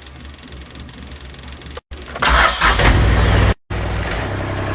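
High-pressure drain jetting machine's engine running after being switched on to drive the jetting hose. A steady hum, a loud stretch of noise about two seconds in, then a steady engine drone; the sound breaks off sharply twice.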